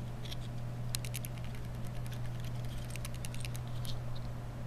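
Quick run of small, sharp plastic and metal clicks and ticks from fingers working parts loose on a BlackBerry Curve 8520 smartphone's circuit board, thickest through the middle and stopping about four seconds in. A steady low hum runs under it.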